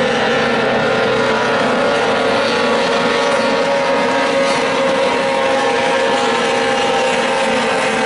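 Several 15 hp outboard engines on small racing boats running flat out together, their overlapping notes making one steady, unbroken drone.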